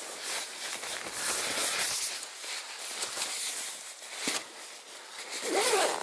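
Rustling of nylon clothing and tent fabric as a down jacket is put on inside a small tent, with small clicks and a brief rasping sound near the end.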